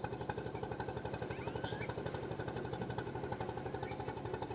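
Small boat engine running steadily with an even, rapid pulse, with a few short bird chirps over it.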